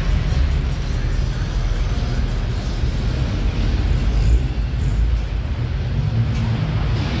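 Engines and exhausts of lowered cars running as they roll slowly past at low speed, first a Honda Civic sedan, then a Honda S2000. A steady low sound with no sharp revs.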